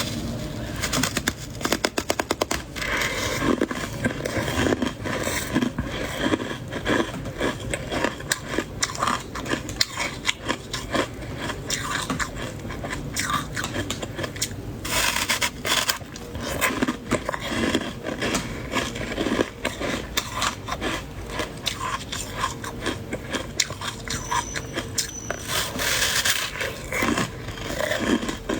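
Soft white freezer frost being scraped and crunched close to the microphone: a dense run of fine, irregular crackles and scrapes.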